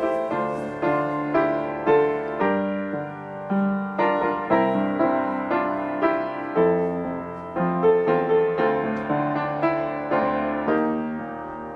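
Upright piano played alone: chords and a melody line, each note struck and left to ring out.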